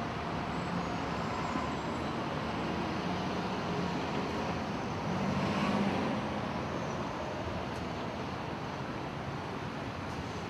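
Steady city street traffic noise, with a passing vehicle swelling louder about five seconds in and fading again.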